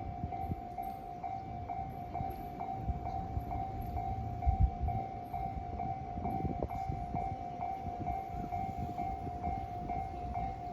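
Japanese railway level-crossing warning bell ringing steadily, about two strokes a second, over the low rumble of a train running past. There is a short low thump about four and a half seconds in.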